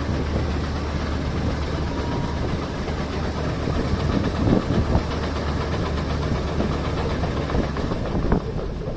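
Farm harvesting machinery's engine running steadily with a low hum, with some louder, irregular rumbling about four to five seconds in.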